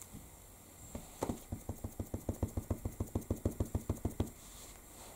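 Fast, even tapping of a clear acrylic stamp block against an ink pad as the stamp is inked, about eight taps a second for roughly three seconds, starting about a second in.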